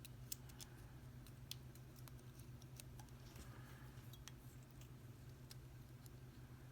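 Near silence with faint, scattered small clicks and ticks of a Mako 425 lock being handled as it is shimmed to pull the plug, over a low steady hum.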